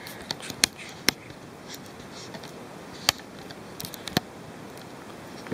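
A handful of sharp clicks and light knocks from a small camera tripod being unfolded and set up, with a faint steady hiss underneath.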